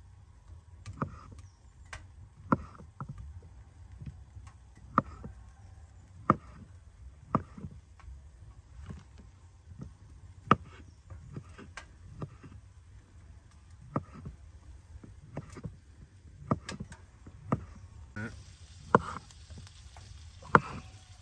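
Kitchen knife slicing sausages into rounds on a wooden cutting board, each cut ending in a sharp tap of the blade on the board, about one every second or so at an uneven pace.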